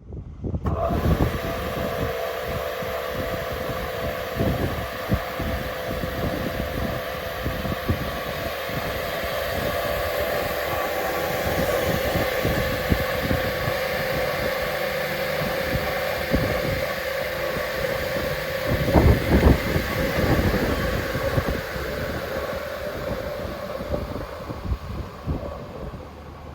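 Radial arm crosscut saw with a roughly 3 kW motor running, giving a steady whine over mechanical noise, with a louder surge about two-thirds of the way through.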